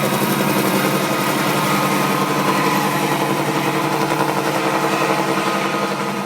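Helicopter in flight, its rotor beating in a fast even rhythm over the steady hum of its engine.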